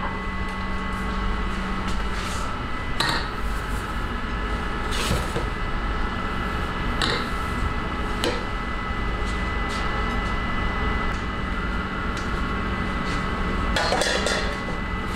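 Steady hum of bakery machinery, with a few light knocks and clinks as the rice cake on its metal spit is handled.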